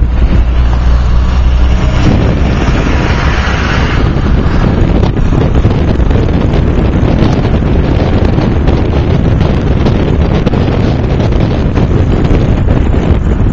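Loud rush of wind on the microphone and road noise from a car driving in traffic. The car's low engine hum stands out in the first two seconds.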